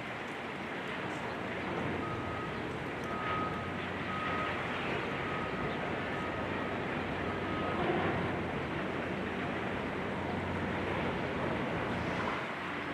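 Steady rumble of heavy machinery and traffic, with a backup alarm beeping about once a second for several seconds, stopping shortly before the middle of the stretch.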